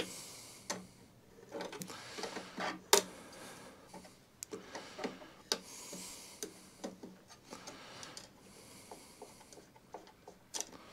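Socket ratchet clicking in quick runs as a nut is worked loose on a mower's drive-side gear plate, with a few sharper metal knocks of the tools and parts.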